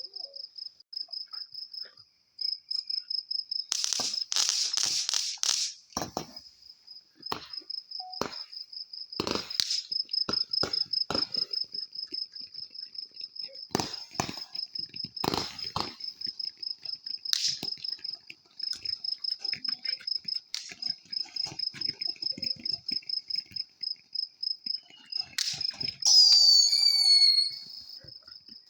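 Crickets chirping steadily in a high, evenly pulsing trill, with scattered pops and crackles of fireworks going off. Near the end comes a louder burst with a high falling whistle.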